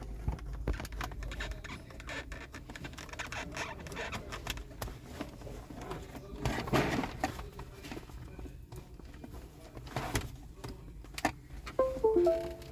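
Hands working wire connectors at a car's OBD2 diagnostic port: irregular small clicks, taps and rattles, with a longer rustle about seven seconds in and a sharp knock near ten seconds.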